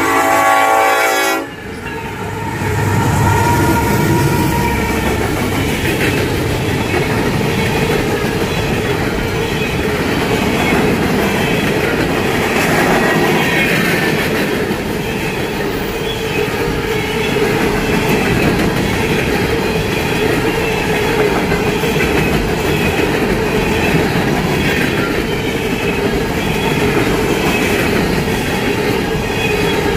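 Union Pacific diesel freight train: the locomotive's horn sounds and cuts off about a second and a half in, then the locomotives rumble past. A long string of coal cars follows, rolling by with steady wheel noise and clickety-clack over the rail joints.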